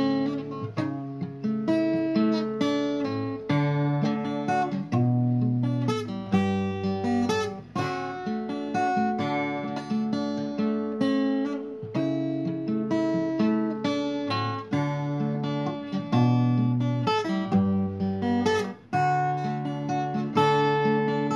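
Background music of acoustic guitar, plucked and strummed chords changing about every second.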